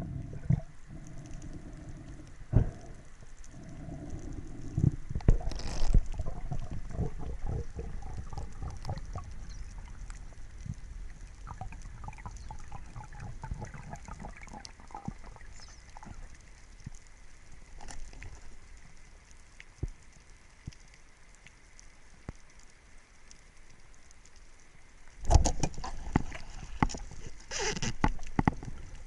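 Water gurgling and sloshing, with many small crackling clicks throughout and a louder rush of noise about three-quarters of the way through.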